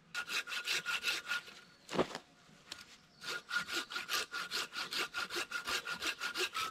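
Hand saw cutting into a block of wood in quick, regular back-and-forth strokes, making a stop cut so wood can then be split away with a batoned knife. The sawing stops for under two seconds, with a single knock in the gap, then carries on steadily with a thin ringing tone over the strokes.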